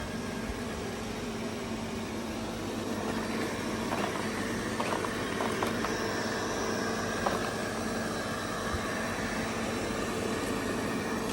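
Xiaomi Robot Vacuum Mop Essential running: a steady hum of its suction fan and brush motors, with a few light clicks a little past the middle.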